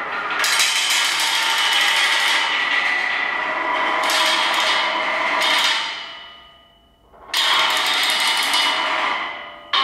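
Percussionists playing metal ladders and pipe frames: a dense, ringing metallic sound full of rattle. It fades out about six seconds in, then comes back suddenly and loudly a moment later.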